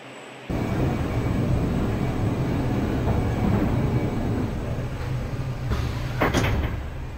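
Steady low rumble and rattle of a car moving through an assembly plant, heard from inside the car, starting abruptly about half a second in. A short sharp clatter comes about six seconds in.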